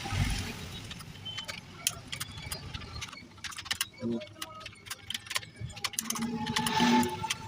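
Computer keyboard being typed on: a run of irregular key clicks.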